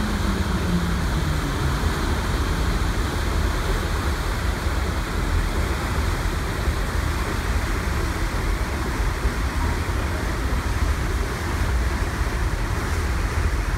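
Steady rushing noise of the churning propeller wash astern of the SS Badger, a coal-fired steamship car ferry under way, over a deep, unbroken rumble.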